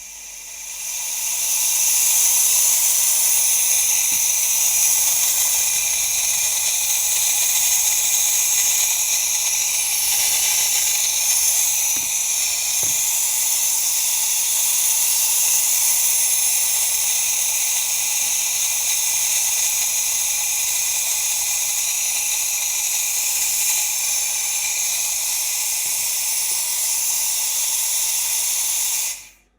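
Espresso machine steam wand hissing steadily while foaming milk. The hiss builds over the first couple of seconds, holds, and cuts off suddenly near the end.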